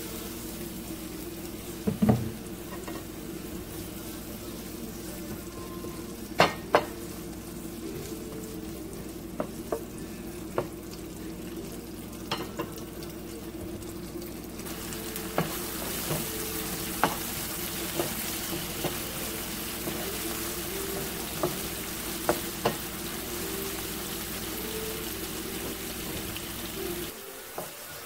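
Sliced onions frying in oil in a nonstick pan, sizzling steadily, the sizzle growing louder and brighter about halfway through as the pan heats. Scattered sharp clicks stand out over it, with a steady low hum underneath; near the end a wooden spoon stirs the onions.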